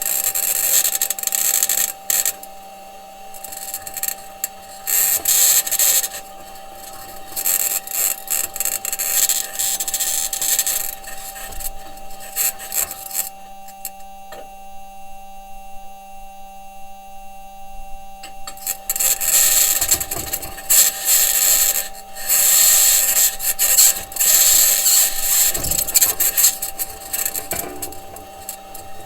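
Perseverance Mars rover driving, heard through its entry, descent and landing microphone: the wheels and suspension grinding over the Martian surface, with a high-pitched scratching that comes and goes over a steady hum. The scratching drops away for several seconds midway, and a couple of low knocks come later. The team is unsure of the scratching's source: electromagnetic interference from an electronics box, or the mobility system working against the ground.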